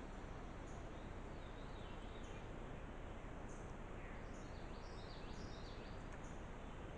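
Steady outdoor background hiss with faint, short high chirps and a few brief downward-sliding calls now and then.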